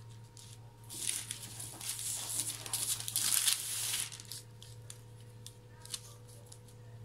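Baking paper rustling and crinkling as hands handle the dough on it, in a stretch of about three seconds starting about a second in, over a steady low hum.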